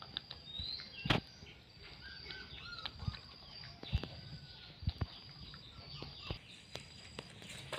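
A dog eating from a plastic plate on gravel: irregular clicks and knocks of its chewing and of the dish, with faint bird chirps behind.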